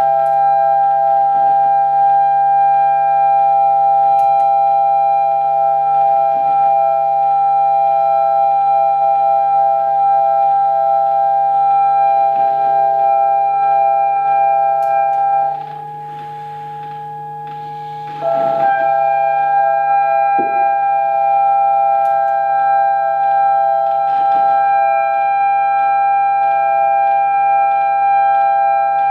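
Experimental electroacoustic music for clarinet, prepared zither and electronics: a steady drone of several held tones over a low hum, with faint clicks. A little past halfway it drops quieter for about three seconds, then the tones return.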